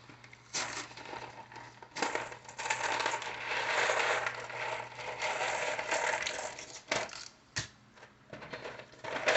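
Crinkling and rustling of packaging, with a few sharp clicks and knocks, over a steady low hum.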